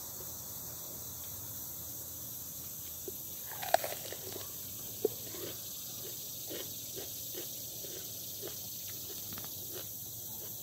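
A person chewing a mouthful of raw green pepper: crisp, wet crunches that start a few seconds in and repeat about two to three times a second, the first two the loudest.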